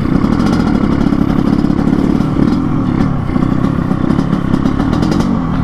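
Yamaha RX-King 135 cc two-stroke single running through a chrome underbelly exhaust with an open air filter, tuned for a rough 'ngorok' (snoring) note. The engine runs steadily and eases off slightly near the end.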